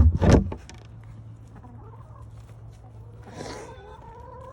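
Chickens clucking: a loud brief outburst right at the start, then a drawn-out call holding one pitch about three and a half seconds in.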